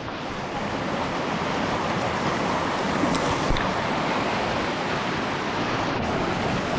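Muddy flash-flood water rushing steadily through a narrow slot canyon, a continuous churning wash of water. A couple of faint clicks come about three seconds in.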